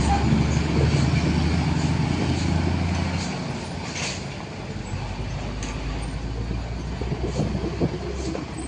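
Heavy vehicle's engine running with a low, steady drone that stops about three seconds in, leaving quieter traffic noise with a few faint clicks.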